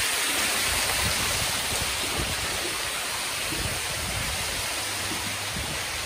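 Artificial waterfall pouring and splashing into a shallow pool: a steady rushing hiss of falling water.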